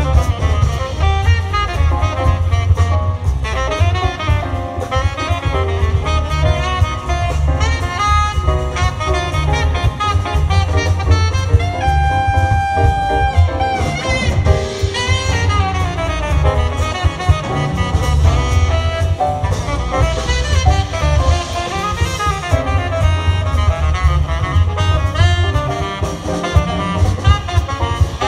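Live jazz quintet: a saxophone solos in fast runs of notes over piano, upright bass and drums, holding one long note about halfway through.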